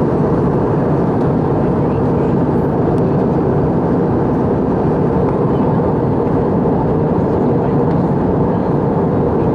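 Steady roar of engine and airflow noise inside the cabin of an Airbus A319 airliner in flight.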